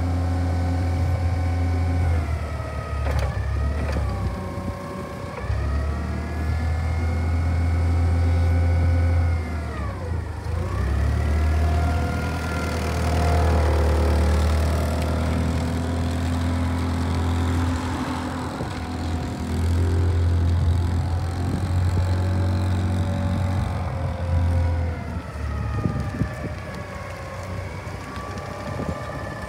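Clark CGP25 LPG forklift running and driving, a steady low engine hum under a whine that falls and rises in pitch several times as the engine speed changes.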